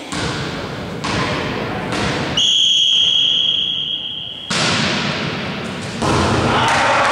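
A volleyball thudding on a sports-hall floor about once a second, with the hall's echo. This is followed by one long referee's whistle blast lasting about two seconds. Another hit and louder noisy play come as the rally begins.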